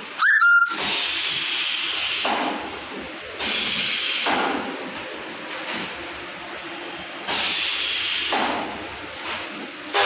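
Compressed air hissing in three loud bursts of about a second each from a pneumatic machine for UPVC window profiles, over a fainter steady hiss, after a short rising squeal at the very start.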